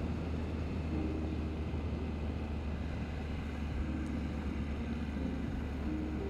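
Triumph Trident 660's inline-three engine running at a steady, easy cruise, heard from the rider's position along with road and wind noise.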